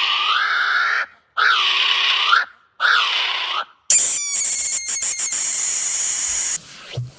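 Animal calls: three harsh, raspy screeches in a row, each dipping and rising in pitch, then a longer, higher hissing squeal with clicks running through it that cuts off near the end.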